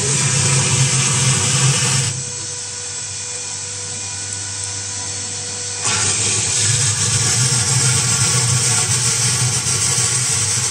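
RX-200 vacuum emulsifier homogenizer mixer running: a steady machine hum and whine under a loud hiss. The loud hissing layer drops away about two seconds in, leaving a lower hum, and comes back about six seconds in.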